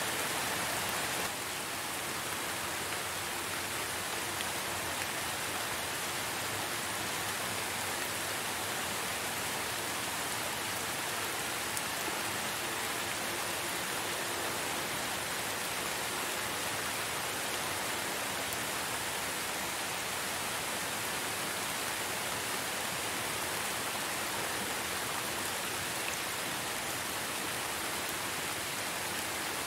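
Steady rain falling, an even hiss with no other events, easing very slightly about a second in.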